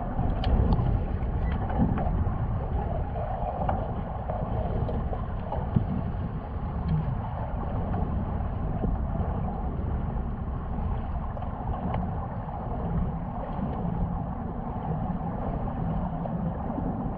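Steady low underwater rumble and hiss in a swimming pool, heard through a camera's waterproof housing, with a few faint clicks scattered through it.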